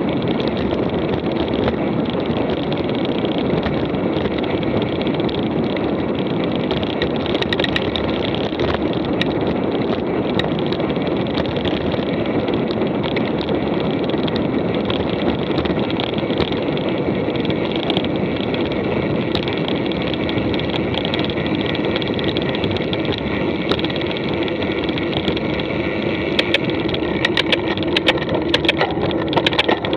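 Mountain bike being ridden on a dirt track, giving steady tyre-rolling and wind noise. A run of sharp rattles near the end comes from the bike jolting over rough ground.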